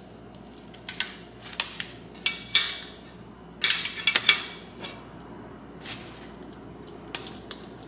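Parts of a caddy being handled and fitted together: the slotted shelf and its clear mounting plates clack and knock against each other in scattered clicks. A cluster of louder knocks comes around the middle, a few of them with a short ring.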